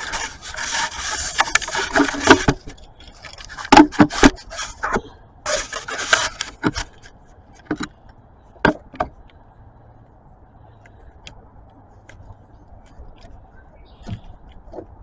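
Rubbing and scraping handling noises in two long stretches, with a few sharp knocks in between and light ticks after, from hands working the oil filter housing and tools.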